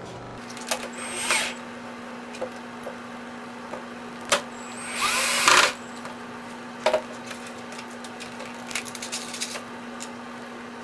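Power drill countersinking screw holes in plywood, with two short bursts of cutting, the louder one about five seconds in, and scattered clicks between them.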